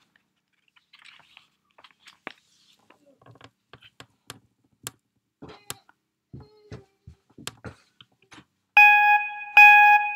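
Faint small clicks and handling taps, then near the end three loud electronic beeps of the same pitch, each just under a second long and about 0.8 s apart, typical of a camera self-timer counting down to a shot.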